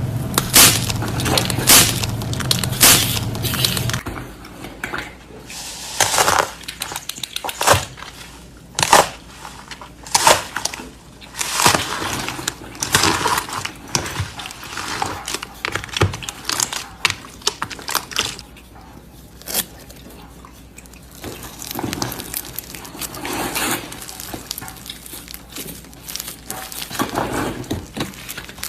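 Slime being handled: squeezed, pressed and pulled apart by hand, in irregular short crackly bursts, some much louder than others.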